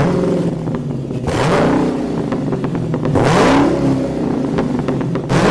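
Car engine revving over a steady idle, its pitch climbing twice: about a second in and again about three seconds in.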